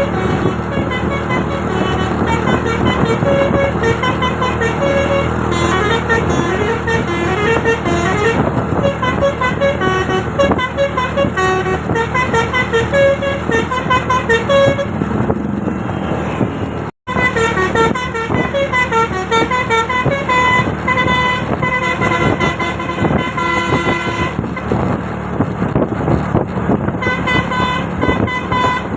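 Bus 'telolet basuri' musical horn playing a long run of quick melodic tunes, with the bus engine running steadily underneath. The sound cuts out for a split second a little past halfway, then the tunes carry on.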